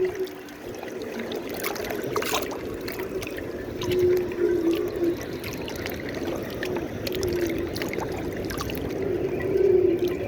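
Strong bora wind gusting, with a wavering low howl that swells and fades and scattered sharp knocks and rattles. Louder gusts come about four seconds in and again near the end.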